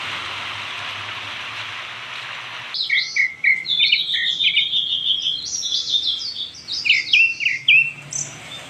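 A steady rush of water cuts off abruptly about three seconds in. Several birds then chirp and sing: quick high repeated notes and short falling slurs.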